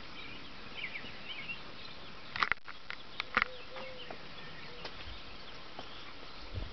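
Faint outdoor background with a few small bird chirps, and a handful of sharp clicks about two and a half and three and a half seconds in.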